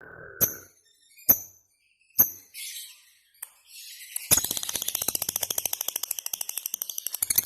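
Lovebird giving a few single sharp chirps, then from about four seconds in breaking into a long, rapid chattering trill of many quick high notes a second: the continuous ngekek song.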